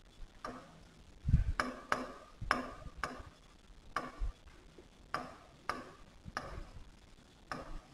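Marker pen writing on a whiteboard: a quick, irregular run of short strokes and taps as the letters are drawn.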